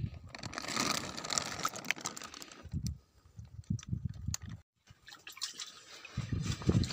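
Pond water sloshing and dripping while a bag and a plastic bowl are handled at the surface. A few sharp clicks and handling knocks are scattered through it.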